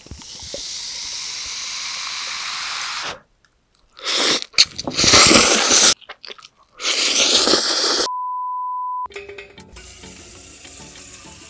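A steady hiss for about three seconds, then loud rushing, hissing noise in two stretches, a single steady electronic beep lasting about a second, and soft background music starting after it.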